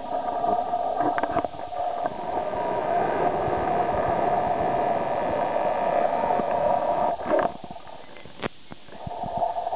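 Steady whirring hum of electronic test equipment's cooling fans, several steady tones together, fading for about two seconds near the end, with a sharp click or two of camera handling.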